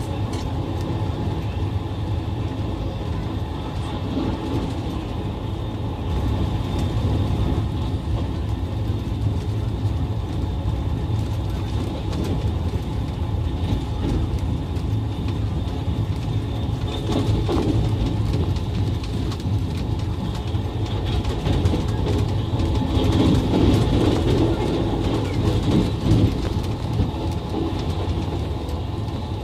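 Passenger train running along the track, heard from inside the coach: a steady rumble of wheels on rails with faint scattered clicks, a little louder for a few seconds past the middle.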